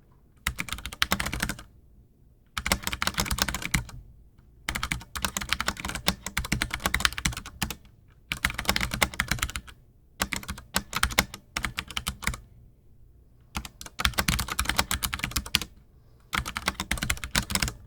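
Typing on a Ducky One 2 mechanical keyboard with Cherry MX Brown switches: rapid keystrokes in spurts of one to three seconds, with short pauses between them.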